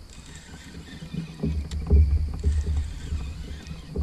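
Handling noise in a kayak: uneven low rumbling knocks from the hull and the rod being worked, loudest around the middle, with one sharp click a little before two seconds in.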